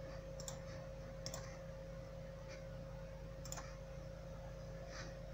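Faint computer mouse clicks, about five at uneven intervals, over a steady faint electrical hum with a thin constant tone.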